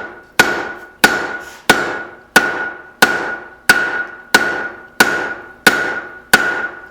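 Steady blacksmith hammer blows on steel over an anvil, about one and a half a second, each with a short metallic ring. This is drawing out a tong's reins.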